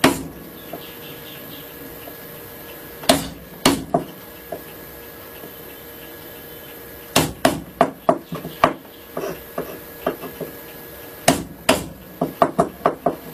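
Hammer blows on a small wood chisel, chopping a square recess into the plane's wooden body to seat a square nut. A few single strikes a few seconds apart, then clusters of sharper blows and lighter taps, ending in a quick run of taps.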